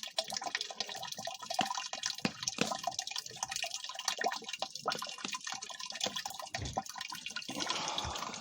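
Hot water and steam sputtering and gurgling through the copper coil of a wood-fired rocket stove water heater, a dense irregular crackle of small pops over a steady hiss: water near the boil in the heating coil.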